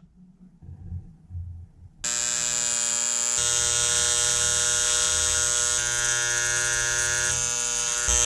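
A few faint handling knocks, then about two seconds in a small electric power tool motor starts and runs steadily with a high whine and hiss.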